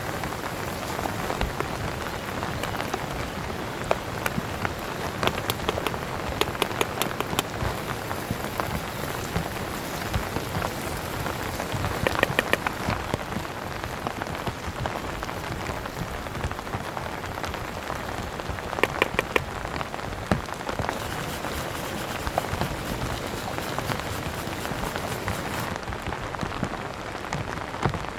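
Steady rain falling, a dense patter of drops with a few brief spells of louder, closer drips.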